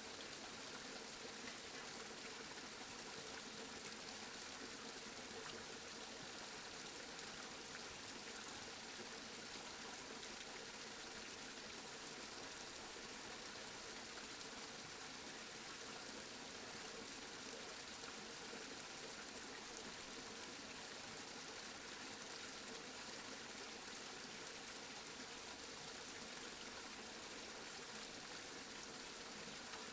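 Steady rain falling, an even hiss without thunder or distinct drops.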